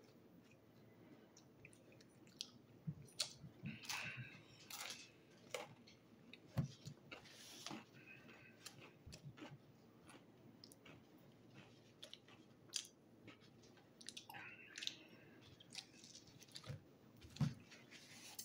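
Faint chewing of a pizza slice, with scattered short mouth clicks and smacks.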